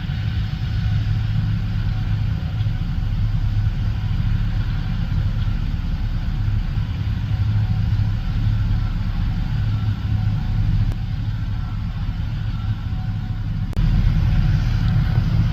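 Heavy diesel farm machinery running steadily: a deep, even engine drone with a faint steady whine above it. Near the end the sound changes abruptly and becomes louder and deeper.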